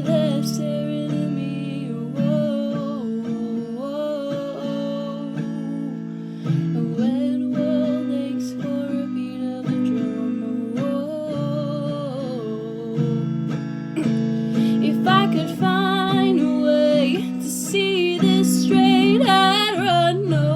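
Acoustic guitar strummed in chords under a singing voice, with wavering held notes in the second half.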